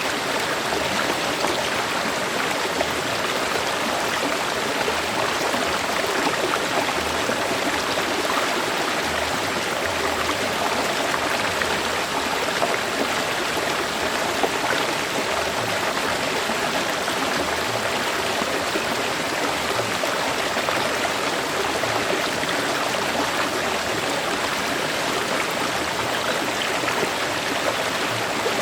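Steady rushing and burbling of a river's flowing water.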